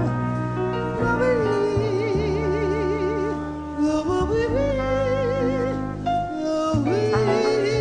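Live jazz ballad: a woman's voice sings long held notes with wide vibrato, interwoven with a trumpet, over a sustained band accompaniment.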